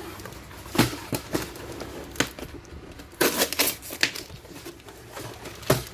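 Box contents being handled during an unboxing: scattered clicks and knocks of plastic and cardboard with some crinkling, a cluster of louder knocks a little past three seconds in.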